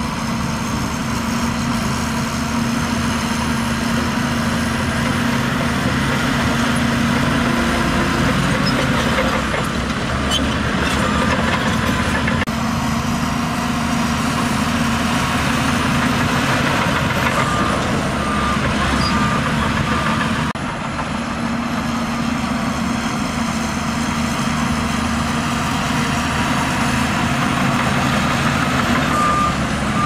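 SHANTUI crawler bulldozer's diesel engine running steadily under load. A reversing alarm beeps in short runs, about three beeps a second, in the second half and again near the end.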